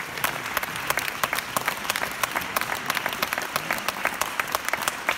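Audience applauding, with many individual hand claps standing out.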